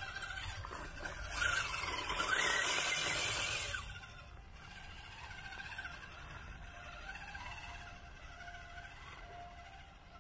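Small electric motor and drivetrain of a 1/18-scale RC rock crawler whining under throttle as it climbs a dirt bank. The whine is loudest over the first four seconds, rising in pitch about two seconds in, then drops to a faint steady hum.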